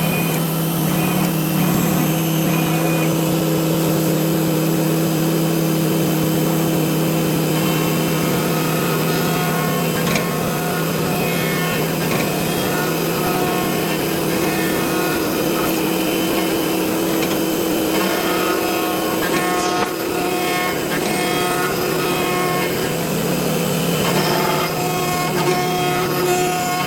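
CNC wood router working wood: the spindle runs with a steady hum and whine while the cutter mills and drills, with a rasping cutting noise over it.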